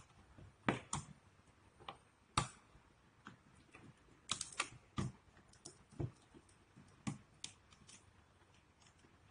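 Plastic bell-push switch being handled and opened off its wall box: a dozen or so sharp little clicks and knocks of plastic at irregular intervals.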